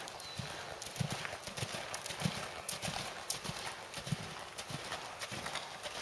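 Hoofbeats of a Canadian Warmblood horse cantering on soft arena footing: dull thuds in a steady rhythm, about three strides every two seconds.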